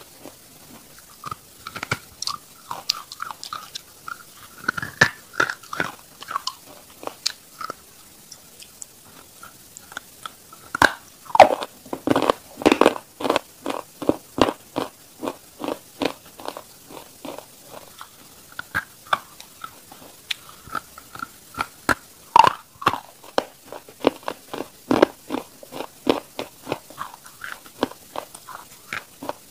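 Close-miked crunching as a person bites into and chews a lump of dry chalk: rapid crisp crunches, densest about a third of the way in and again past the two-thirds mark.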